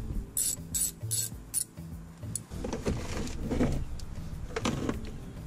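Ratchet wrench clicking in a few short strokes as a battery terminal nut is loosened, followed by softer rubbing and handling of the battery cables.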